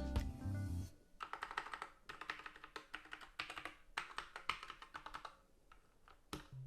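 Typing on a Corsair K60 Pro TKL keyboard with Corsair OPX optical-mechanical switches: a quick run of key clicks lasting about four seconds, then a single click near the end.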